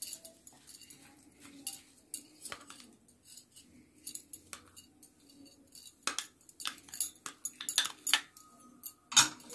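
A spoon stirring spiced chunks of carrot, radish and green chilli in a glass bowl, with scattered clicks and knocks of the spoon against the glass. The clicks get busier and louder in the second half, with the loudest knock near the end.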